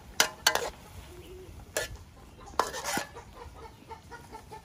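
Metal tongs clinking and scraping against a stainless steel wok while seafood is stir-fried, in a handful of sharp, irregular knocks.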